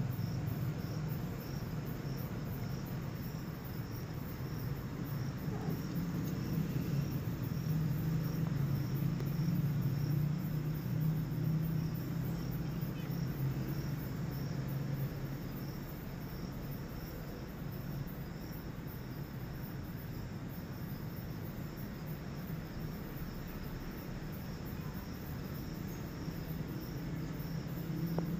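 Crickets chirping in an even, repeating pulse, over a steady low hum.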